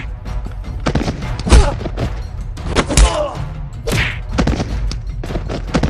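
Fight-scene blows: a string of hard thuds of punches and kicks, the loudest about a second and a half in and about three seconds in, between short shouts from the fighters.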